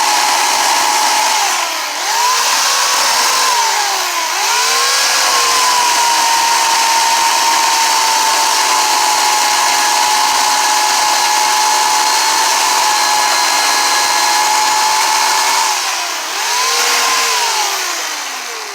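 Gas chainsaw running at high revs, carving into hardwood with a dull chain. Its engine note drops and climbs back three times as the throttle is eased and reopened, and it winds down near the end.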